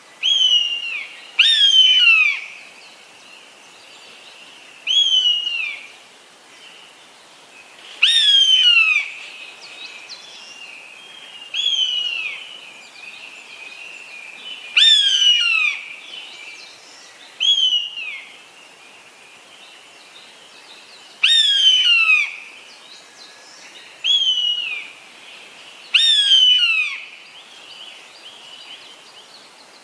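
Eastern buzzard giving its mewing call over and over, about ten times, roughly every three seconds. Each call is a clear whistle that starts sharply and slides down in pitch; some are shorter and some are longer and louder.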